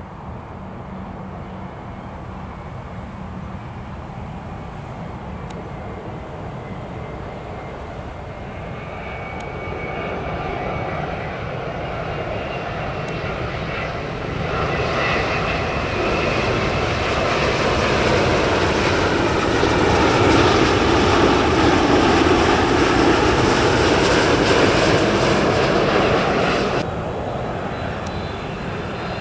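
Boeing 787-9 Dreamliner jet engines passing by, growing steadily louder with a faint whine over the top. After a long stretch at its loudest, it cuts off abruptly near the end and gives way to quieter jet engine noise from another airliner.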